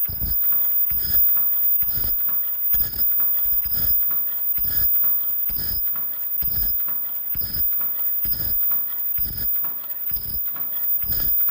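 Automatic disposable face mask machine running, knocking in a steady rhythm a little faster than once a second as it cycles. Each knock is a low thump with a short high ring.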